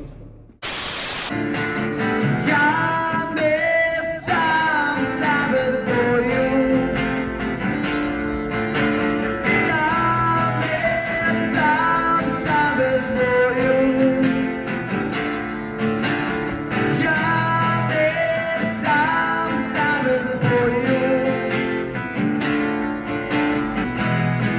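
Background music led by guitar, with strummed chords under a sliding melody line. It begins just after a short burst of noise about half a second in.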